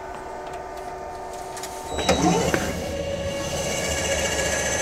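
Electric main actuator of a trash compactor starting up about two seconds in with a short rising whine, then running steadily as it drives the compaction ram down. A fainter steady hum comes before it.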